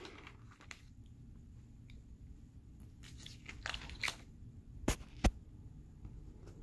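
Pages of a spiral-bound paper manual being turned by hand: faint paper rustles and small clicks, then two sharp clicks about half a second apart roughly five seconds in.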